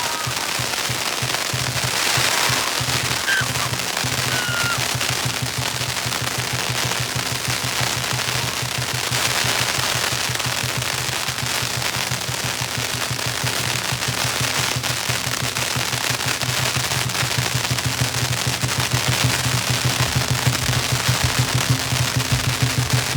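A long string of firecrackers going off in a continuous rapid crackle of pops, like machine-gun fire, growing a little louder and punchier near the end.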